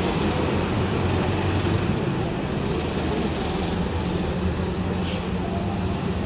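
Road traffic: a steady low rumble of vehicle engines, with a short hiss about five seconds in.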